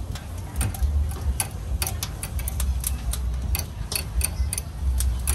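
Irregular sharp clicks and taps, several a second, over a steady low rumble.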